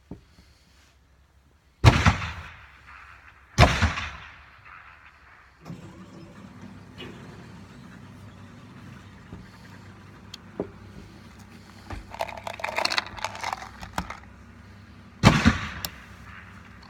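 Three loud gunshots from elsewhere on an indoor range, one about two seconds in, one a couple of seconds later and one near the end, each sharp with an echoing tail. Between them there are small metallic clicks and rubbing as a percussion revolver is handled and loaded, and from about six seconds in a steady low hum.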